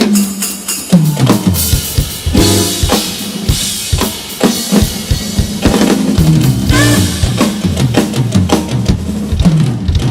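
Jazz band playing an instrumental passage, with the drum kit out front: dense kick, snare and rimshot strokes over a moving bass line.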